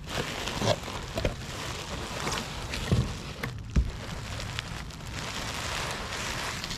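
Scattered light knocks and clicks over a steady hiss, typical of parts and tools being handled during car repair work.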